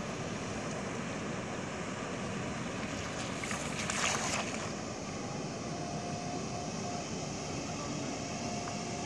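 A hand-thrown cast net slapping down onto the water in one splash about four seconds in, over steady wind and water noise.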